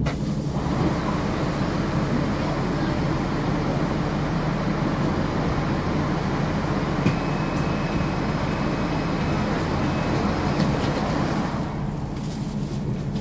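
Inside a NefAZ 5299 city bus: the engine runs with a steady low hum under a dense, even rush of road and traffic noise. The rush eases off a little near the end.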